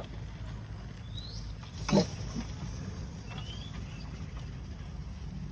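Two short, high, rising animal squeaks about two seconds apart, with a single thump between them.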